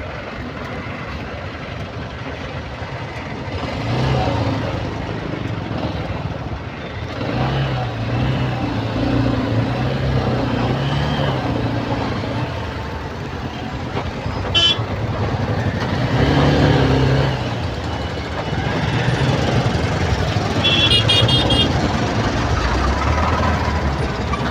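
Heavy, slow-moving road traffic of trucks and cars with engines running, and horns sounding now and then: a short toot about two-thirds of the way through and a rapid string of high beeps near the end.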